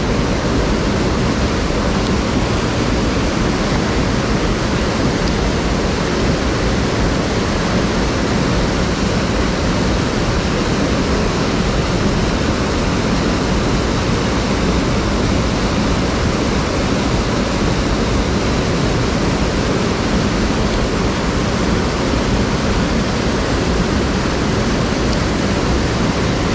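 Mountain stream water rushing over rocks: a loud, steady, unbroken rush.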